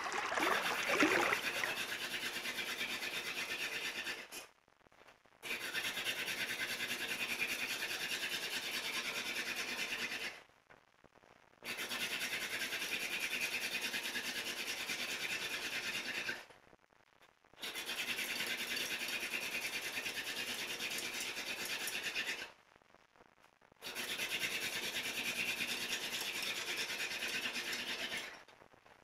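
Friction-fire drill: a wooden spindle grinding against the fireboard with a steady rasp, in runs of about five seconds broken by short pauses roughly every six seconds.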